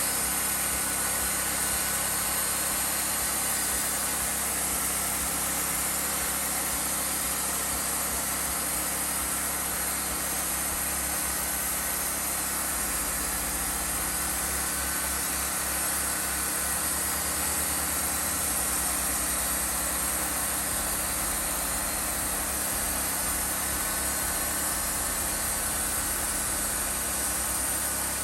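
Wood-Mizer LT40 portable band sawmill running steadily, its engine and band blade at work milling logs.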